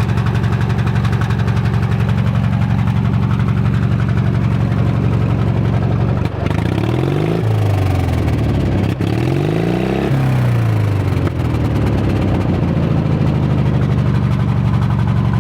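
Small Craftsman lawn tractor engine running through a rattle-can exhaust, beverage cans slipped over the pipe to make it rattle. In the middle its speed falls and rises twice, then it settles back to a steady run.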